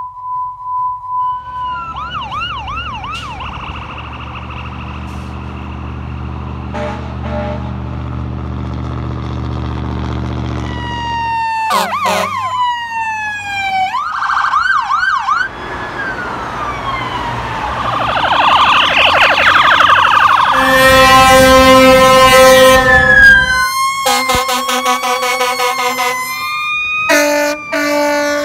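Fire apparatus sirens cut together one after another: an electronic siren wailing and yelping with a low steady rumble under it for the first ten seconds or so, then fast falling sweeps, rapid yelp and phaser cycles, and a few seconds of steady stacked horn tones, each segment cutting off suddenly.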